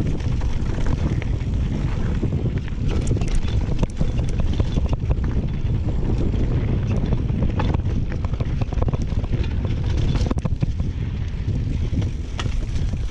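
Wind buffeting a GoPro Hero 6 microphone on a mountain bike riding a trail, a steady low rumble, with frequent short clicks and rattles from the bike running over rough ground.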